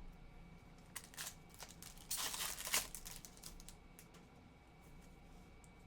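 Faint crinkling of a trading-card pack wrapper and cards being handled, with a few light clicks about a second in and a louder crinkle-and-tear around two to three seconds in.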